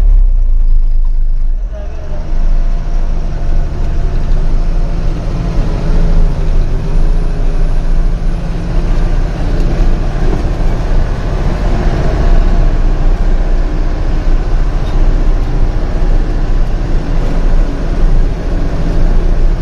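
Heavy truck's engine running steadily with a loud low drone as the truck drives.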